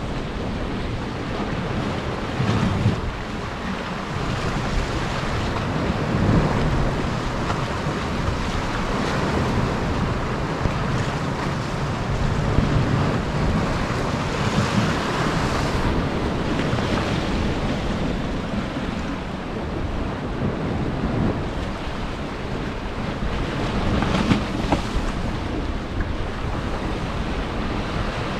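Sea surf washing and breaking against shoreline rocks in slow surges, with wind buffeting the microphone.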